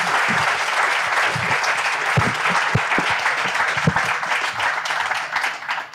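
Audience applauding, the clapping dying away at the end.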